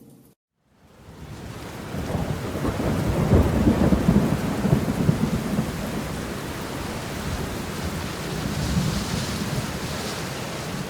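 Heavy rain with a low rolling rumble of thunder. It fades in after a brief moment of silence, swells over about two seconds, then continues steadily.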